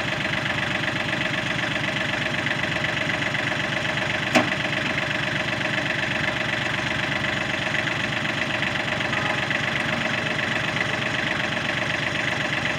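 Kubota L35 tractor's diesel engine running steadily, with one short sharp knock about four seconds in.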